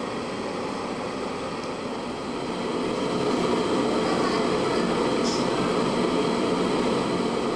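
Steady rushing noise of a gas stove burner under a pan of watery curry coming to the boil, getting louder about two and a half seconds in.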